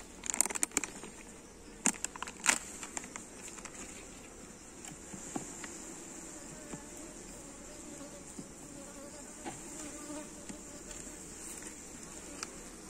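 Honeybees buzzing steadily over an open hive full of frames. In the first few seconds, a metal hive tool prying the propolised wooden frames apart makes several sharp clicks and cracks.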